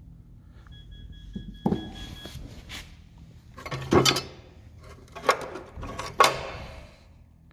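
A handful of knocks and clanks, about five, from wrecked engine parts such as the connecting rod being picked up and set down; the loudest come about four and six seconds in.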